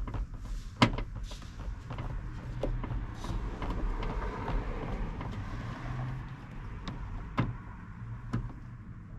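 Screws being backed out of a truck door with a hand Phillips screwdriver: a scratchy grinding of the tool turning, with a few sharp clicks of metal on metal and plastic, the sharpest about a second in.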